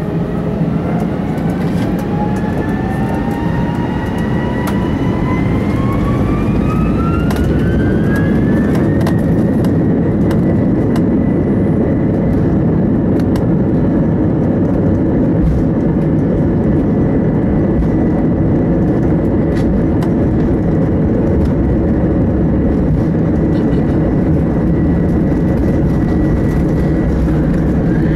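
Airbus A321's turbofan engines spooling up to take-off thrust, heard inside the cabin: a whine rising in pitch for about nine seconds, then holding as a steady high whine over a loud rumble as the take-off roll gets under way.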